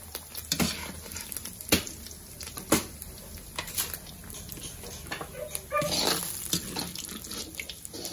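Diced pork frying in a black wok with a light sizzle, while a metal spatula scrapes and knocks against the wok, about once a second at first. A brief call sounds about six seconds in.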